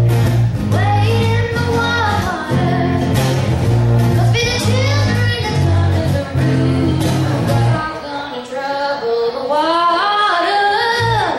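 Live band music: a girl singing lead over strummed guitars. The low notes drop out for about three seconds near the end, leaving the voice and higher guitar, then come back.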